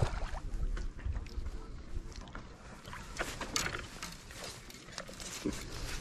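Water splashing in irregular bursts as a hooked Israeli carp is brought to the surface and landed, with wind rumbling on the microphone at the start.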